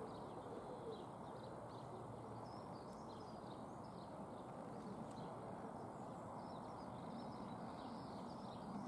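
Faint outdoor ambience: small birds chirping in short scattered calls over a steady low rumble of wind or distant background noise.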